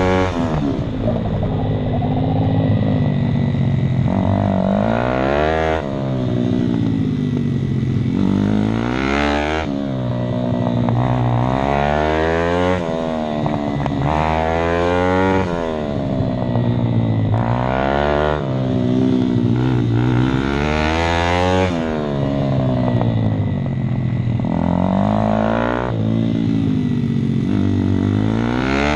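Pitbike's Daytona 190cc single-cylinder four-stroke engine under hard riding, heard from on the bike: it revs up in pitch and falls back about eight times, some drops sudden, as the rider accelerates, shifts and rolls off for corners.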